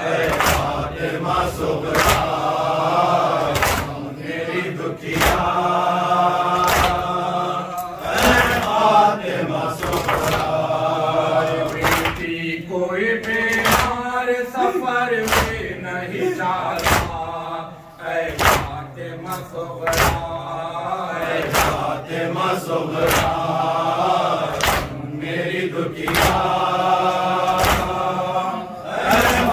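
Men chanting a noha, an Urdu Shia lament, with several reciters leading and voices joining in, over rhythmic chest-beating (matam) that keeps time at roughly one beat a second.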